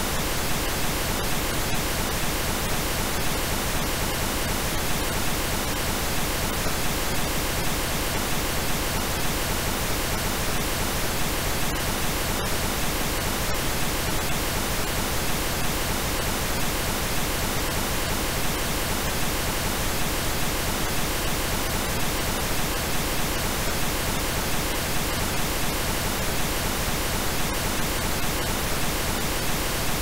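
Steady synthesized pink noise: an even, constant hiss across all pitches that does not change.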